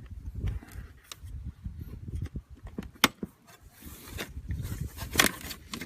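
A spatula prying a plastic backing plate away from a stock plastic hood vent, with low handling knocks and scrapes and sharp cracks as the plastic welds give way. The sharpest crack comes about three seconds in, and more come near the end.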